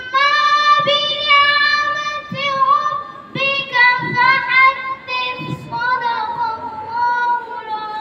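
A boy singing solo into a handheld microphone, holding long drawn-out notes in short phrases.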